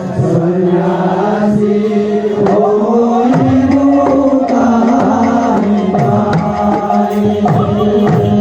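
Devotional kirtan music, an instrumental stretch between sung lines: a held, droning melody line with hand-drum strokes whose bass notes bend in pitch several times.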